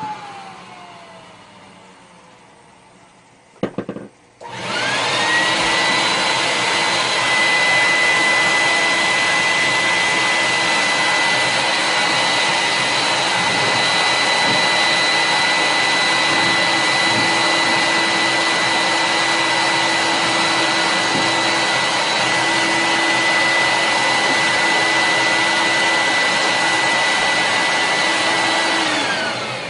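Vacuum cleaner used to vacuum dust and debris out of a furnace. At the start its motor is dying away with a falling whine. About four seconds in it is switched back on and runs steadily with a high whine over a loud rush of air. Near the end it is switched off and the whine falls away.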